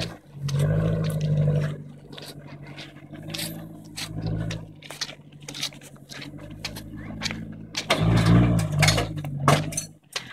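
Toyota Hilux engine working hard up a rutted dirt hill climb, its revs surging about half a second in and again around eight seconds, with many sharp crunches and clicks of tyres and stones on the track.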